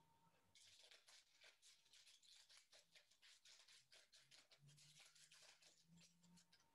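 Faint scissors snipping through a stack of paper, with paper rustling: many quick, crisp cuts one after another, starting about half a second in.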